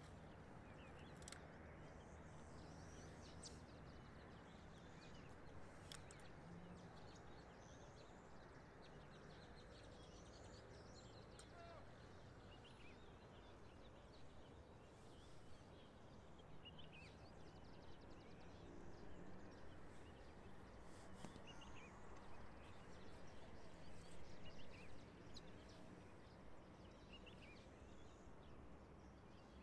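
Near silence: faint open-air ambience with a steady low hiss, scattered faint bird chirps and a few soft clicks.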